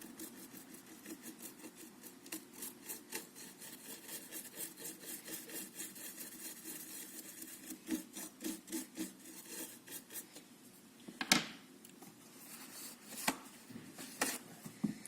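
Close-up hand work on a graphics card: continuous fine scraping and rubbing, with a few sharp clicks in the last few seconds.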